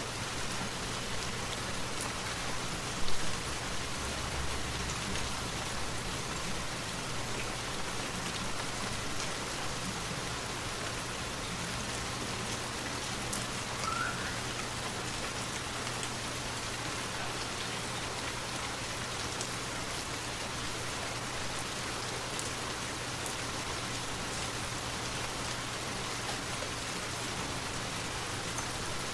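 Forest waterfall: a steady, even rush of falling water. A brief louder knock comes about three seconds in, and a short faint chirp near the middle.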